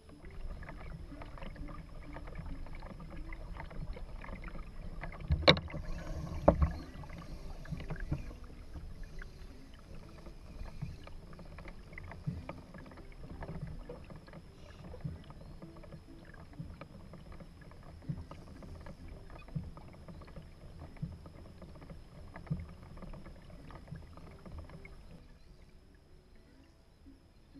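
Water and hull noise aboard a Hobie Outback kayak: a low rumble of water and wind with scattered knocks and clicks against the boat, the loudest two sharp knocks about five and a half and six and a half seconds in. It grows quieter over the last couple of seconds.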